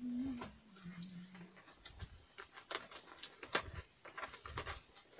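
Paper wrapping of a parcel crackling and rustling in short irregular bursts as hands work at it, over a steady high-pitched cricket trill. A person hums a low note for the first second or so.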